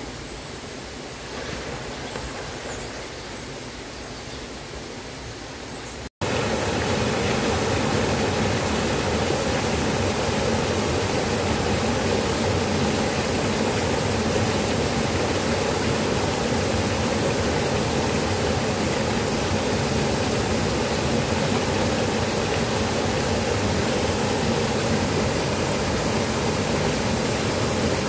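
Steady rushing of a small waterfall pouring into a pool. It is quieter for the first few seconds, then after a cut about six seconds in it is loud and unchanging.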